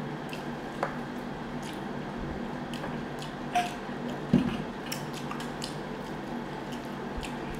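Table-side eating sounds: wooden chopsticks clicking against small bowls and a wooden serving board, with soft wet mouth and chewing sounds, over a steady low hum. A few sharper knocks stand out, the loudest a little past the middle.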